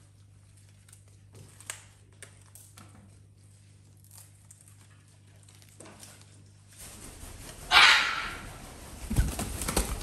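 Parrots chewing and tearing corn-plant leaves: faint scattered clicks and rustles. About eight seconds in comes a loud, short, harsh burst, and near the end a few low thumps of wings as a macaw lands.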